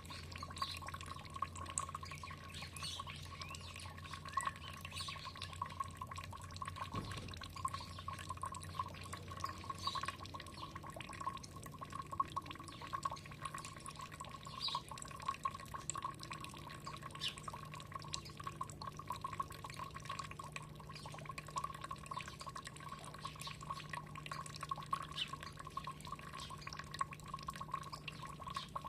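Water trickling and dripping steadily, with many small drips and splashes.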